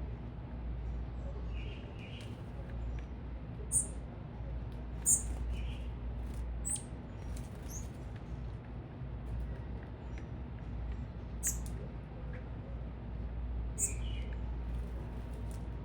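Small birds at a feeder giving short, sharp, high chirps, scattered irregularly with a few softer, lower notes, over a steady low city rumble.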